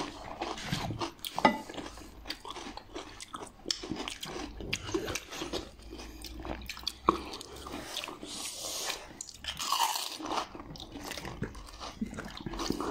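Crisp hollow pani puri shells cracking and being crunched and chewed, an irregular run of crackles with a couple of sharper, louder cracks.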